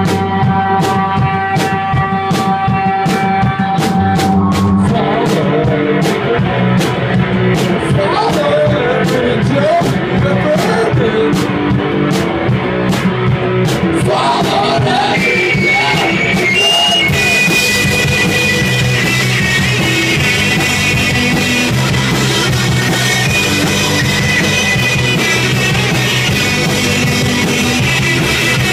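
Live rock band playing loud in a room: electric guitars through amplifiers with drums. It starts with held notes over steady ticking, fills out about five seconds in, and high held guitar notes come in about halfway through.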